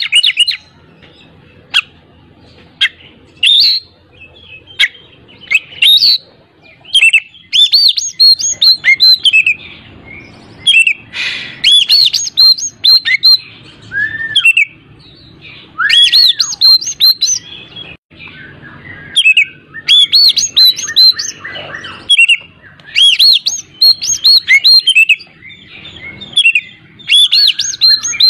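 Oriental magpie-robin (kacer) in full, loud song: rapid bursts of varied chirps and quick rising-and-falling whistles, broken by short pauses, with a few slower, lower slurred whistles about halfway through. This is a 'pancingan' song, used to goad other magpie-robins into singing.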